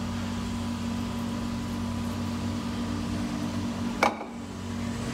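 A steady low hum from a running kitchen appliance or fan, with a faint, even, higher tone above it. About four seconds in comes a single sharp knock.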